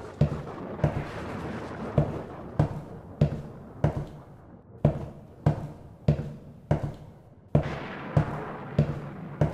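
Footsteps at a slow, even walking pace, about one heavy thud every half second or so, over a faint steady hiss.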